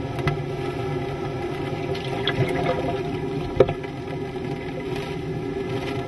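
Hurricane wind and rain, a steady rushing noise, with a single sharp knock about three and a half seconds in.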